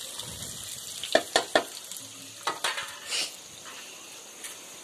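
Chopped onions sizzling in hot oil in a pan, a steady hiss, with a few sharp knocks and scrapes of stirring against the pan about a second in and again around the three-second mark.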